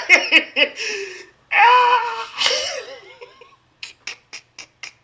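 A person laughing hard, with a loud cry about halfway through, then a run of about five short breathy bursts of laughter near the end.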